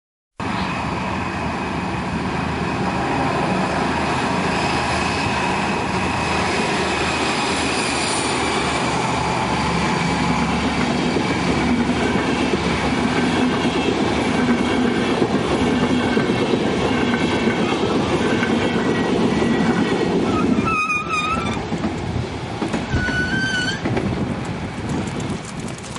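Intercity train hauled by two DB class 218 diesel locomotives passing close by, a loud steady rumble of diesel engines and wheels rolling on the rails. Near the end the noise drops, a wavering high squeal sounds briefly, and the train fades as it draws away.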